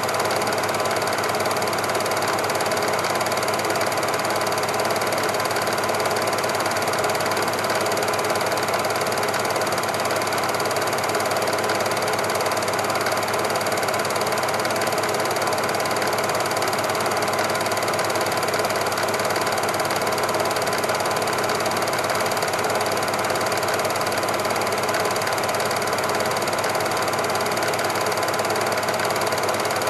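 Super 8 film projector running: a steady mechanical whirr with a fast, even rattle that never changes.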